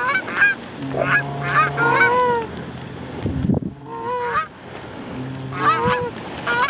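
Goose calls blown in quick runs of honks and clucks, Canada goose calling to bring circling geese in, with a lull about halfway through.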